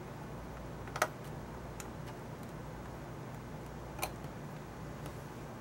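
Small hand tools clicking against a circuit board during desoldering: one sharp click about a second in, another about three seconds later, and a few faint ticks, over a steady low hum.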